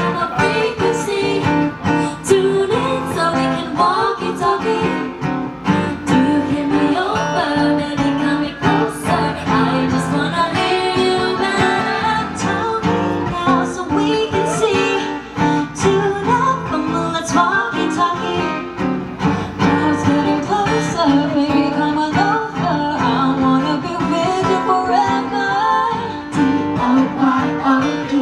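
Live performance of a pop song, led by strummed acoustic guitar, with singing over the accompaniment.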